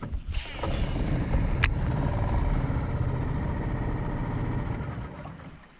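A small boat engine, most likely an outboard motor, running steadily, with a sharp click about a second and a half in. The engine sound fades out near the end.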